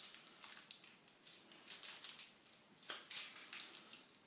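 Faint crinkling and clicking of a face-mask sachet being handled and squeezed to take out more mask, with a slightly louder crackle about three seconds in.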